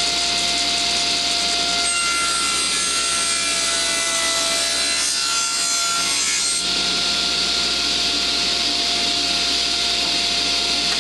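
Table saw running at full speed, cutting through a piece of wood from about two seconds in to about six and a half seconds in, its motor pitch dipping slightly under the load.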